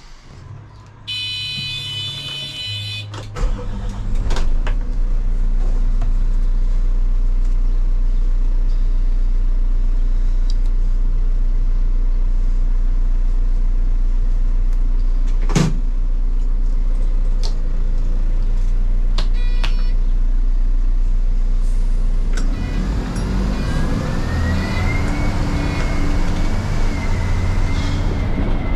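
Dennis Eagle bin lorry's Volvo six-cylinder turbo diesel: a high beeping tone for about two seconds, then the engine starts about three seconds in and idles steadily. Near the end the lorry pulls away, the engine note rising with a climbing whine.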